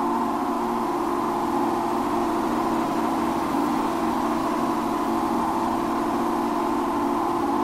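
Electronic music: a steady, dense drone of hiss-like noise with held low and middle pitches, with no beat.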